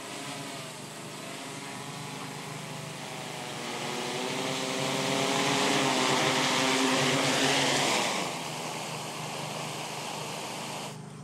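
Freefly ALTA Pro heavy-lift multirotor drone flying on seven motors: a propeller hum whose pitch wavers as it is steered in to land. It grows louder as it comes close, drops off sharply about eight seconds in, and cuts off near the end.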